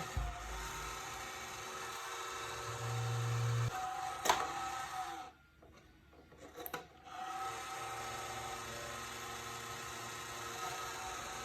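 Computer power supply fan running with a rough, grinding rubbing noise, the fault to be fixed. A sharp click comes about four seconds in, the noise drops away for about two seconds, then comes back steady.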